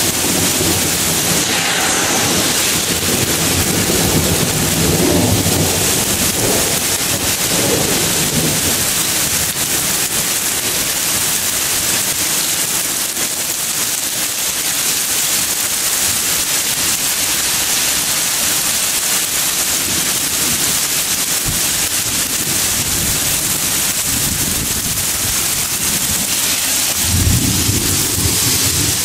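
Heavy thunderstorm rain pouring steadily, a loud, even hiss. Thunder rumbles low under it through the first several seconds, and a brief low rumble comes near the end.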